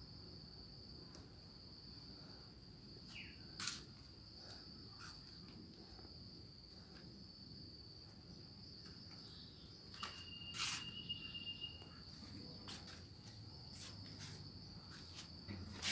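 Faint, steady, high-pitched chirring of a cricket or similar insect in the background, with a few faint clicks and taps.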